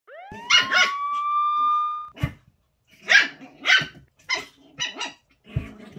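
Small dog barking repeatedly, about nine short, sharp barks. During the first two seconds a whistle-like tone rises and then holds under the first barks.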